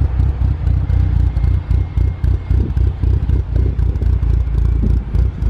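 Mitsubishi Evo 8's turbocharged 2.0-litre 4G63 inline-four idling on aftermarket Kelford cams, with a choppy, pulsing lope ("bop, bop, bop") given by the cams.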